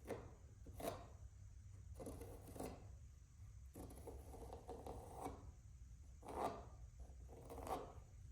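Pencil scratching on cedar while tracing around a template, in short strokes about a second apart.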